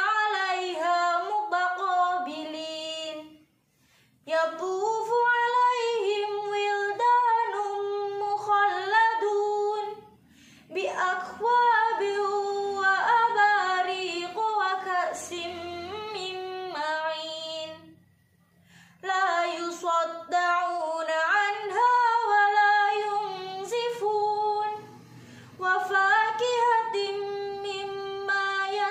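A young woman's solo voice chanting the Qur'an in the melodic tartil style, unaccompanied. She sings long ornamented phrases with gliding pitch and stops briefly for breath between verses, four times.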